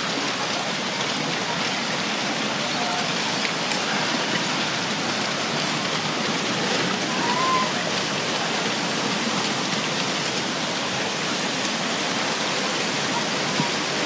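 Tsunami floodwater rushing through a wrecked town and its debris: a steady, even rushing noise.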